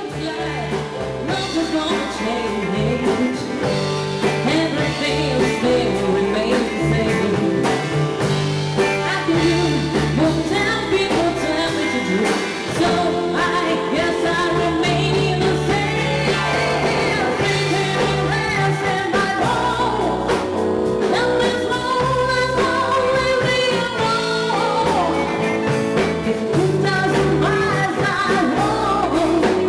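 Live soul band: a woman sings into a microphone over electric guitar, electric bass and a drum kit.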